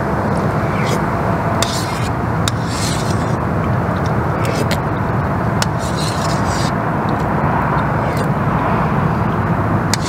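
A metal spoon scraping and clinking in a metal camp pot, about ten short strokes, over a steady loud rushing background noise.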